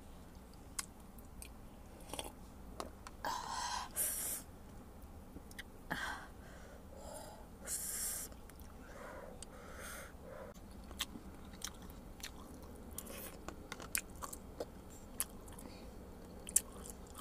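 Close-up eating sounds: chewing and wet lip smacks, with several short breathy slurps as noodle soup broth is drunk from a paper cup.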